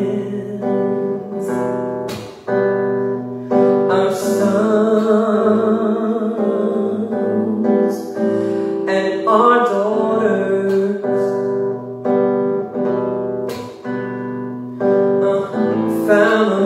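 A woman singing a slow song, accompanying herself on acoustic guitar, with a chord struck every second or two.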